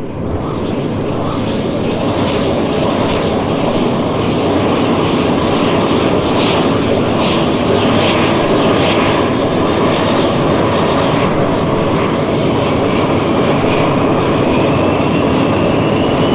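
Jet airliner engines at takeoff power: a loud, steady roar that swells over the first few seconds, with a thin whine rising in pitch from about twelve seconds in.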